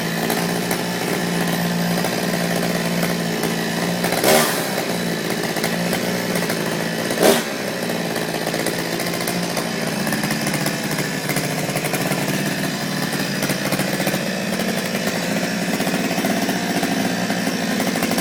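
Gas chainsaw running steadily. Two brief sharp noises cut through it, about four and seven seconds in.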